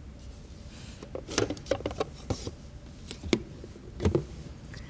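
A box being opened and a framed photograph lifted out of it: a run of short rustles, taps and clicks for about three seconds, starting about a second in.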